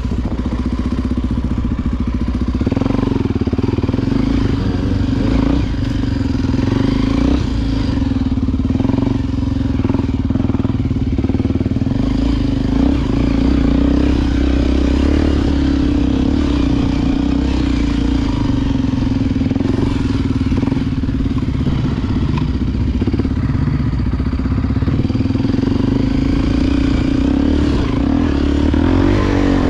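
Honda XR Tornado 293's single-cylinder four-stroke engine running at a steady, fairly even speed while the motorcycle is ridden off-road.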